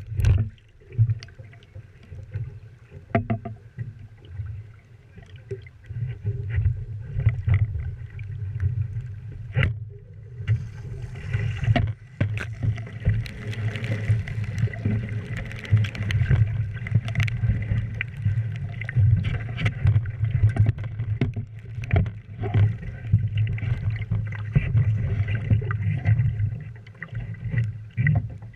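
Wind rumbling and buffeting on the microphone aboard a small sailing dinghy, with the rush of water against the boat and scattered knocks; the water sound is strongest from about 11 to 20 seconds in.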